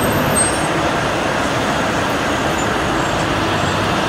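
Steady road traffic noise, with the running of vehicle engines close by.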